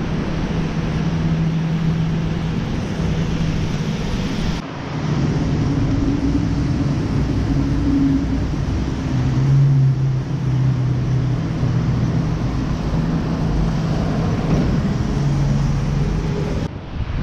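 City street traffic noise: a steady wash of road noise with the low hum of vehicle engines, breaking off abruptly about four and a half seconds in and again near the end.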